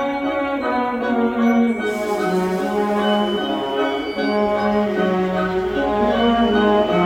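Orchestral background music, with many sustained pitched notes moving from one to the next.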